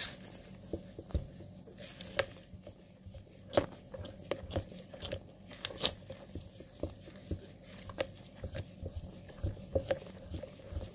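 Cake-style biscuit batter of egg, oil and sugar being stirred by hand in a bowl, with irregular clicks and knocks of the utensil against the bowl, a few a second.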